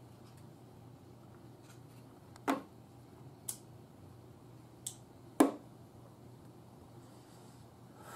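A disposable lighter struck to light a cigarette, then sharp taps as the lighter and cigarette pack are set down on the plastic car wing: four short clicks in all, the last the loudest. A faint steady low hum runs underneath.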